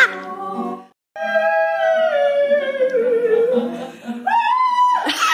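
A woman singing long drawn-out notes with an acoustic guitar. The sound cuts out briefly about a second in. Then one long note slides slowly downward and wavers, and is followed by a higher held note.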